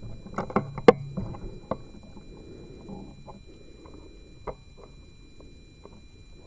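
Handling noise from a scoped rifle and camera rig: a cluster of sharp clicks and knocks in the first two seconds, the loudest about a second in, then a low rumble with one more knock about four and a half seconds in.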